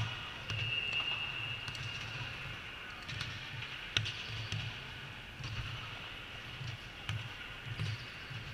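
Volleyball court sounds between rallies: scattered sharp knocks and thuds of a ball bouncing on the hard court, the loudest about four seconds in, with a brief high squeak near the start.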